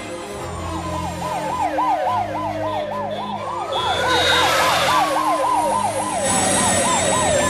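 Emergency-vehicle sirens. One runs in a fast yelp, about four cycles a second. A second siren's slower wail rises and falls midway through, over a low engine drone.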